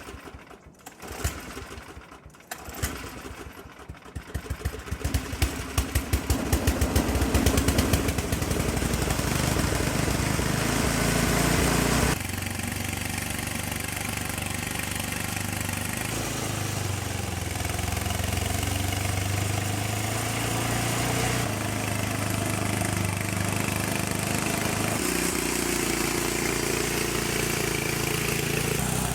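Craftsman snowblower's small gas engine starting: its firing speeds up over a few seconds into steady running. About twelve seconds in the sound drops suddenly in level, then it runs on steadily, its pitch shifting a few times.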